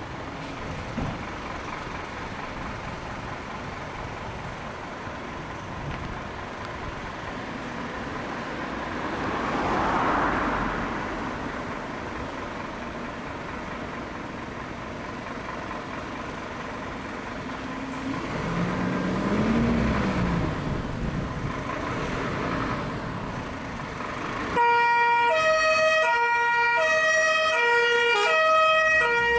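Road traffic and vehicle noise, then about 24 seconds in a Scania fire engine's two-tone siren starts, switching back and forth between a high and a low note.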